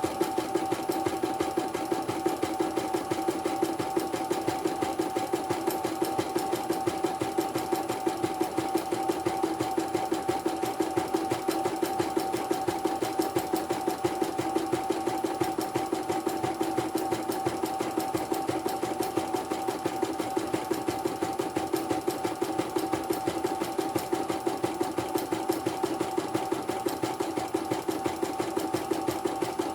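A CNY portable computerized embroidery machine stitching a test pattern: a steady motor whine with rapid, even needle strokes, several a second. It is running after a repair that replaced its power supply, motor and tension set.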